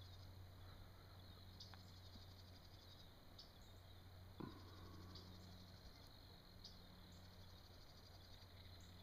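Near silence: faint insects chirping in short high trills that recur about every second and a half to two seconds, over a low steady hum, with one soft knock about four and a half seconds in.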